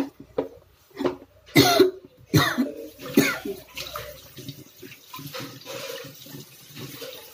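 Steel pots and bowls being scrubbed and washed in a stainless-steel kitchen sink, with metal clinking and water splashing. A few loud sharp bursts come between about one and a half and three seconds in.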